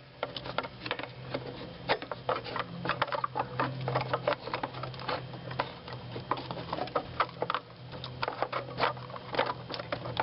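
Irregular quick clicks and taps of hard plastic as a blower motor resistor is pushed and wiggled against the snap catches of its mounting opening, over a steady low hum.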